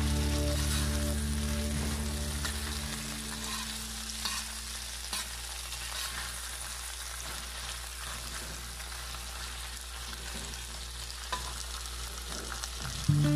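Garlic chives and tofu sizzling in a hot wok as they are stir-fried, with a metal spatula scraping and knocking against the pan a few times.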